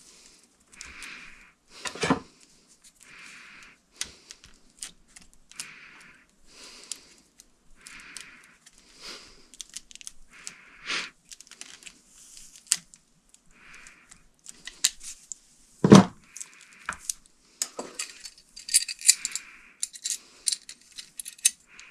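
Hands working on ceiling fan wiring and small metal parts: scattered light clicks and jingles, a knock about two seconds in and a louder thump past the middle, with crinkling of plastic wire film near the end. A soft hiss repeats about every second throughout.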